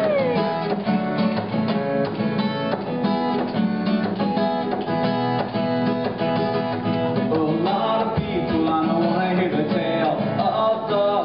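Acoustic guitar strummed steadily in a live instrumental break between sung verses, with a voice heard over it from about eight seconds in.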